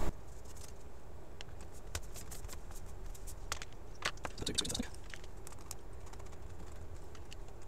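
Faint scattered clicks and taps of hands handling a Dell XPS 15 laptop's aluminium bottom cover and its hinged badge flap, with a small cluster of clicks about halfway through, over a low steady hum.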